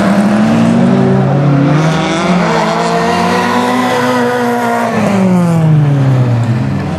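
Rally car engines running at high revs on a track, pitch holding high and then falling steeply about five seconds in as a car passes and lifts off.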